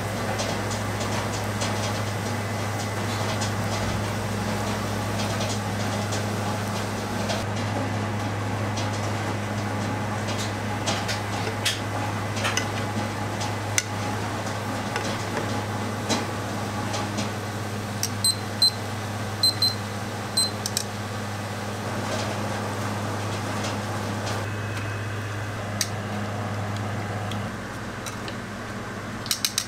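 Doughnuts deep-frying in a pan of hot oil: a steady crackling sizzle over a constant low hum, with metal tongs clicking against the pan now and then. About two-thirds of the way through comes a quick run of short, high electronic beeps.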